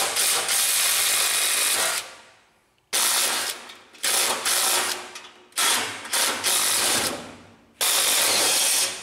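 Cordless impact wrench hammering on bolts of a tracked vehicle's sprocket assembly arm, loosening them to take the arm off. It runs in about six loud bursts of one to two seconds each, the first the longest.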